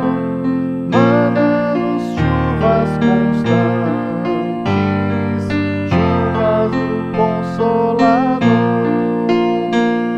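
Electronic keyboard with a piano-like tone playing a hymn accompaniment in B-flat major as broken chords over held bass notes. The chords change every second or two, moving from F to B♭.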